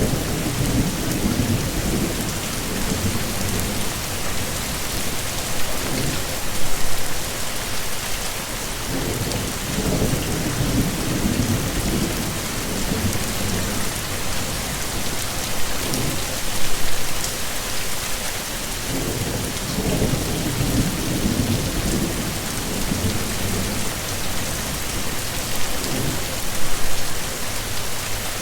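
Heavy rain falling steadily, with low rolling rumbles of thunder that swell for a few seconds and fade, about once every ten seconds.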